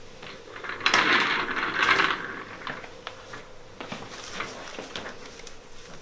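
Rustling and handling noise as a patient's head is taken up on a paper-covered chiropractic headrest: a loud rustle lasting about a second, starting about a second in, then a few light knocks and shuffles.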